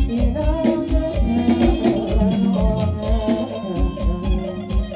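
A male singer singing into a microphone with a live band, in the Isan folk-pop style, over a steady kick drum at about three beats a second.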